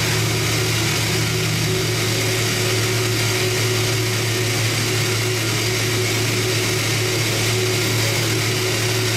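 Mazak HQR-250MSY multi-tasking CNC turning center running a machining cycle: a steady machine whir with a constant low hum and a faint steady tone.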